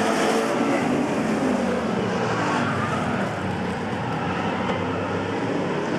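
A pack of street stock race cars running at racing speed on an oval, several engines layered into one steady dense sound. Their tones slide in pitch as the cars pass by.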